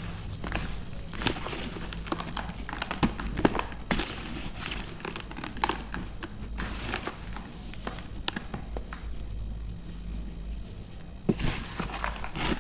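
Broken pieces of pressed baking soda being crunched: irregular crisp crunches and crackles, some louder than others, over a steady low hum.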